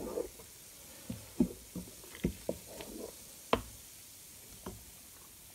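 Wooden spatula stirring thick, actively fermenting blackberry-and-grape must in an enamel pot, knocking against the pot about eight times, the loudest knock about three and a half seconds in.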